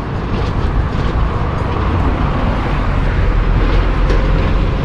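Water spraying and splashing over a plastic toy bus as it is washed: a dense, steady rush with a strong low rumble underneath.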